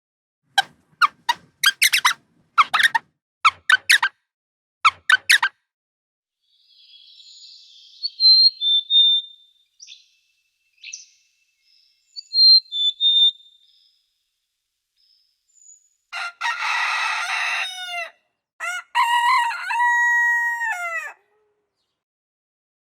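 Rapid short high squeaks for the first few seconds, then a bird's high chirps, then a rooster crowing, one long cock-a-doodle-doo that falls off at the end.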